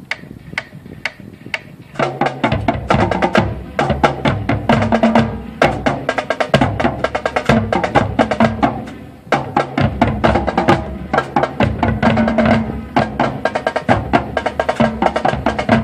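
High school marching band playing: light percussion taps, then about two seconds in the full band of brass and drums comes in loud with a steady beat.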